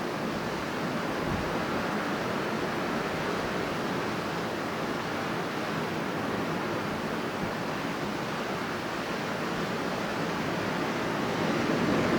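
Strong wind blowing steadily, an even rushing noise that swells slightly near the end.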